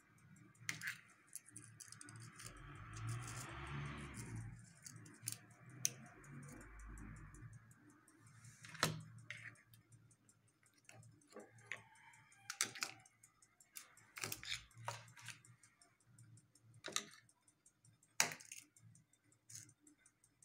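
Handling noise on a workbench: a hand moving a compass and a clamp meter about, giving scattered clicks and knocks, with a rustle in the first few seconds. The sharpest click comes near the end.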